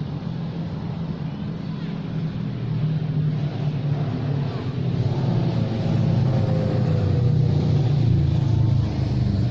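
A motor vehicle's engine running, a steady low hum that grows louder about halfway through.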